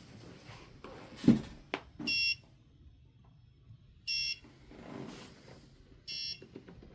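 An ESP32-driven electronic beeper sounds three short, high-pitched beeps about two seconds apart. This is the freezer-door alarm going off because the door has stayed open past its timer. About a second in there is a sharp knock, then a smaller click.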